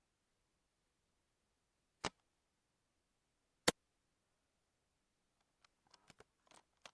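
Two sharp single clicks about a second and a half apart, then a quick flurry of smaller clicks and a brief rustle near the end, over near silence.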